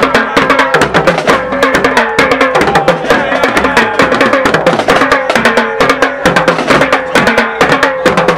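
Marching drumline playing tenor drums and a bass drum: a fast, dense beat of stick strikes.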